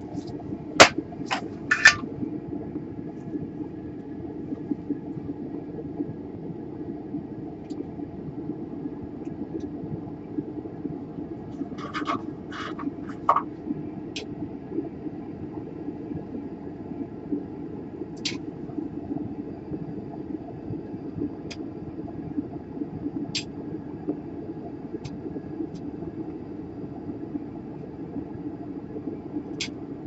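Steady low hum of bench equipment, with light clicks and taps of a soldering tool against a laptop motherboard during desoldering: a cluster of clicks about a second in, another around twelve seconds in, then a few single ticks.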